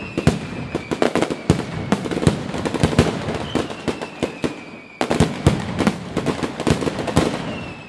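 Fireworks: a dense run of sharp bangs and crackles starting abruptly, with a high whistle that slides slowly down in pitch, heard twice and again near the end.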